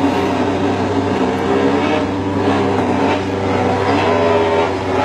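Steady mechanical running noise: a constant low hum with wavering pitched tones above it. It is not the Ducati MotoGP bike shown, which is still switched off.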